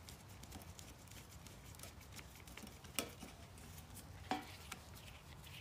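Faint clicks and taps of a screwdriver and a plastic replacement electrical plug being handled, with two sharper clicks about three and four seconds in.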